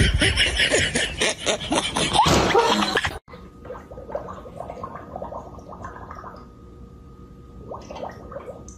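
Loud laughter over a rushing noise for about three seconds, then a sudden cut to quieter wet slurping and smacking from a dog with its head in its bowl.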